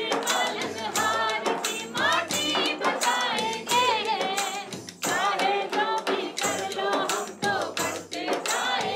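Men and women singing a Hindi protest song together, over a steady beat of hand claps and jingling hand percussion.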